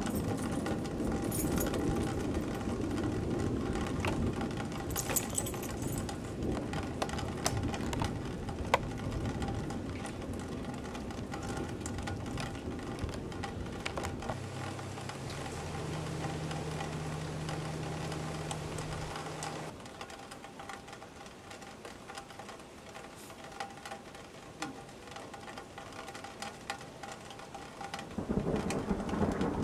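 Rain falling in a thunderstorm, with many small drips and ticks, and low rumbling thunder through the first half. About halfway in, a steady low hum joins for several seconds and cuts off suddenly, leaving the rain quieter until it picks up again near the end.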